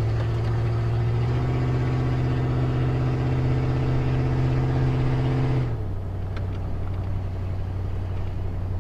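A carbureted 351 Windsor V8 in a 1991 Ford F250 running steadily under throttle as the truck drives. About six seconds in, the engine note steps down to a lower, quieter drone.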